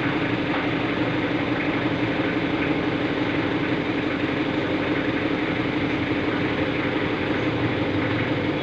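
Machinery running steadily in a workshop: a constant low mechanical hum that holds an even pitch and does not change.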